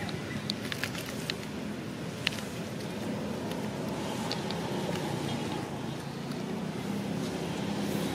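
Steady low outdoor rumble with a faint hum, broken by a few sharp clicks in the first couple of seconds.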